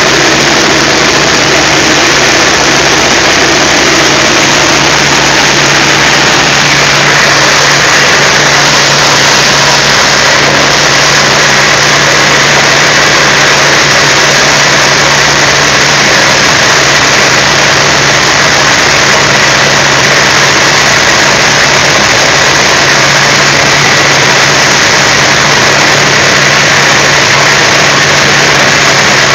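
North American T-28C Trojan in flight, its Wright R-1820 nine-cylinder radial engine and propeller running steadily, heard inside the cockpit along with the rush of air over the canopy.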